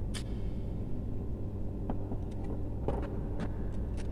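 Light plastic clicks and taps from a wall socket outlet and its wires being handled while the wires are connected, about half a dozen spread through, over a steady low background rumble.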